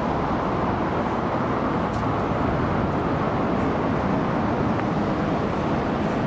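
Steady city street ambience: an even, constant hum of traffic and urban background noise.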